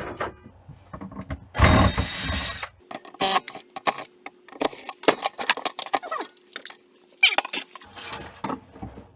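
Hand dismantling of a small appliance: a run of irregular knocks, clicks and clatters as parts are handled and taken apart, with a louder rushing scrape lasting about a second near the start.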